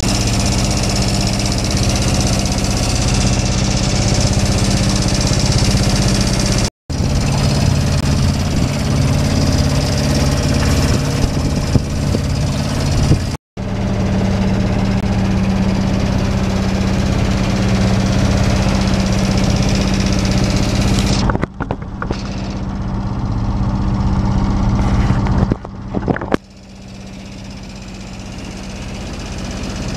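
A sailboat's auxiliary motor running steadily under way, a low engine hum with water and wind hiss over it. It cuts out for an instant twice. The upper hiss thins about two-thirds of the way through, and the sound drops sharply near the end before building again.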